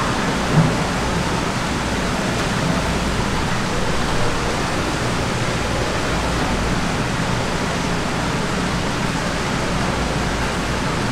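Steady, even rushing noise with no distinct rhythm or tone, and a single soft knock about half a second in.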